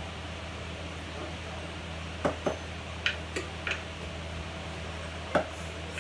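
A handful of sharp clinks and taps of a container and utensil against a small metal bowl while cornflour mixture is made, about six in all, coming after a couple of seconds, over a steady low hum.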